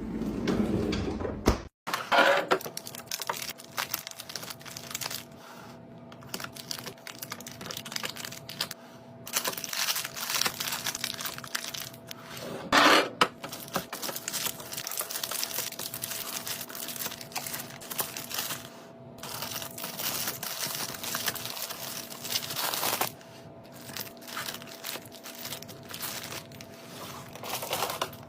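Kitchen handling sounds: plastic packaging crinkling and food containers clicking and knocking irregularly, over a faint steady hum.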